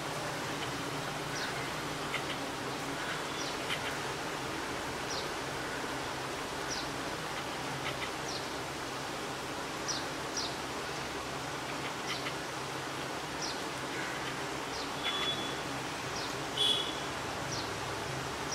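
Hot oil in a kadhai sizzling steadily as pumpkin vade deep-fry, with scattered small pops and crackles. Near the end there is a brief high-pitched squeak.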